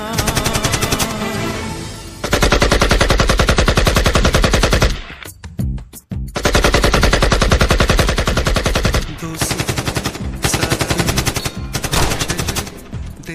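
Dubbed machine-gun sound effect firing long rapid bursts, with a break of about a second in the middle and shorter, choppier bursts near the end.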